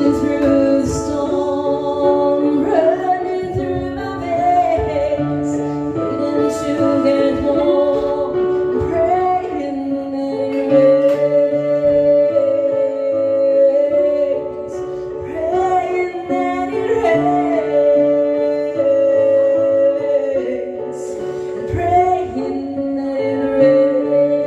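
A song: a singer holding and gliding between long sung notes over instrumental backing.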